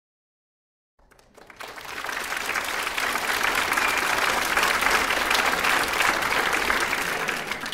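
Audience applause: many hands clapping, rising from silence about a second in, staying full for several seconds and fading away near the end.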